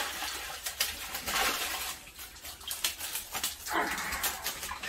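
A fish keep net being hauled up out of a pond, with water splashing and pouring off the mesh in irregular gushes.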